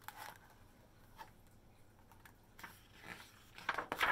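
Pages of a picture book being turned: short paper rustles and handling scuffs, a few at first and a louder cluster near the end.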